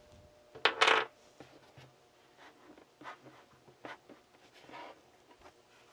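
A sheet of paper and a pen being handled on a desk. There is a brief loud swish of paper about a second in, then scattered faint taps and short rustles.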